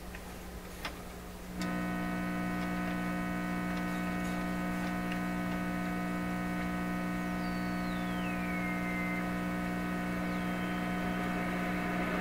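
PYE 39HC valve shortwave receiver's loudspeaker putting out a loud, steady buzzing mains hum instead of a station, coming on suddenly after a small click: the sign of a fault in the set. A faint whistle falls in pitch partway through.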